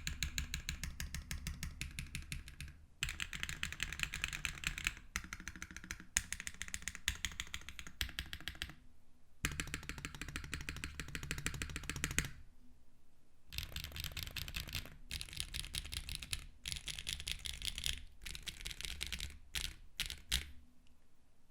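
Fast typing on a mechanical keyboard with Keygeek Y1X linear switches, an aluminium plate, no foam and GMK keycaps. The keystrokes come in quick runs of several seconds with short pauses between them and stop about a second before the end.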